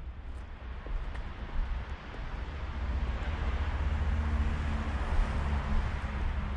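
Outdoor background of wind rumbling on the microphone, with a vehicle's hum swelling through the middle and fading near the end, and a few faint footsteps.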